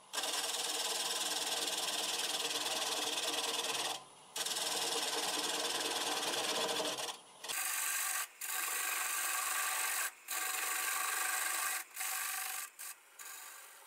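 A turning tool cutting the tenon off a cherry bowl spinning on a wood lathe: a steady shearing, scraping hiss of the edge on the wood. It drops out briefly several times where the tool comes off the cut, more often in the second half.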